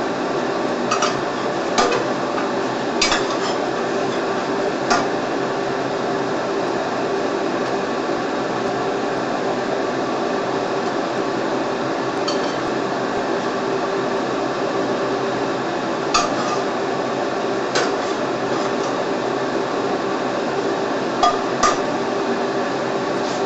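Cooking utensils clinking against a wok and pots: about eight short metal clinks, spaced irregularly, over a steady hum.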